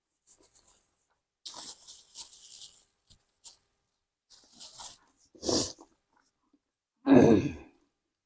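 Close-miked mukbang eating sounds: a few short, hissy bursts of chewing and slurping, then a loud short vocal sound, like a grunt or breath, about seven seconds in.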